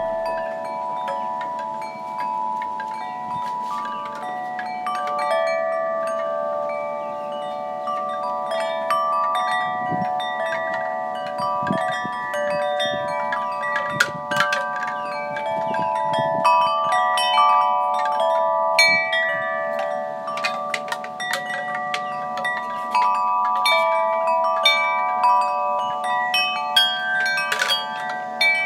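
Wind chimes ringing: many overlapping, long-sustained tones struck at irregular moments, with no steady beat.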